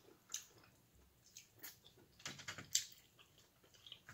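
Faint close-miked eating sounds: about ten short, scattered smacks and clicks of chewing and of fingers picking at seafood, the sharpest a little under three seconds in.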